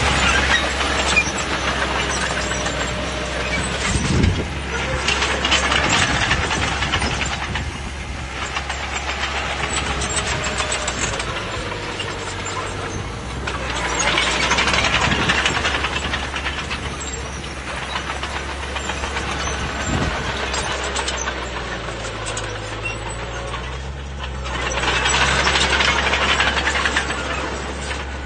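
Bulldozer's diesel engine running with a steady low drone, swelling several times into louder stretches of clanking and scraping as the machine works and pushes dirt.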